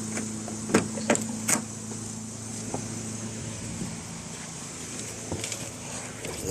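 A few scattered light clicks as the ignition key of a 2004 Mazda RX-8 is tried, over a steady low hum. No starter cranking and no engine follow: the car is dead, which the owner puts down to the immobilizer.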